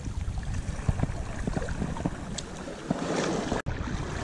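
Wind buffeting the camera microphone in a steady low rumble, with sea water washing over the rocks; a rushing swell about three seconds in, then the sound cuts out for an instant.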